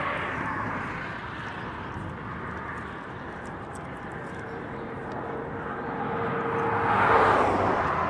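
Road traffic on the bridge: a steady rush of tyres and engines that swells as a vehicle passes, loudest about seven seconds in.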